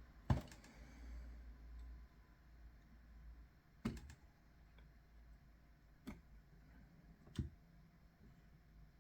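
Four sharp clicks from small hand tools being worked while stripping insulation from a cable, spaced a couple of seconds apart, the first the loudest. A faint low hum fades out about two seconds in.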